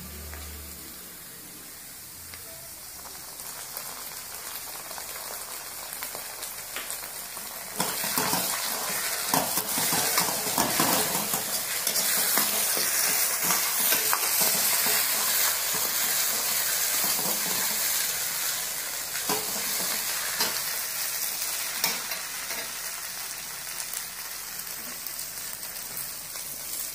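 Chopped vegetables stir-frying in a steel wok: a steady sizzle, with the steel ladle scraping and clicking against the pan as it tosses them. The sizzle gets much louder about eight seconds in and eases off somewhat toward the end.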